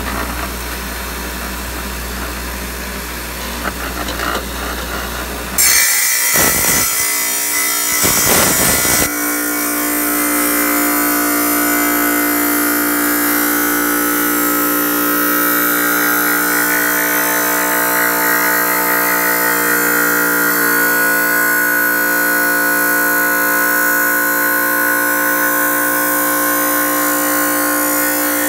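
A small electric power tool runs steadily while a rock is held against its moving part and rubs on it. The grinding is harsh and loudest from about six to nine seconds in, then settles into a steady motor hum with a light scrape.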